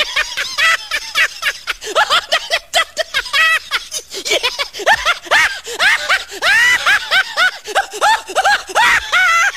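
Hysterical human laughter, a fast run of high-pitched 'ha-ha' bursts, with somewhat longer drawn-out peals in the second half.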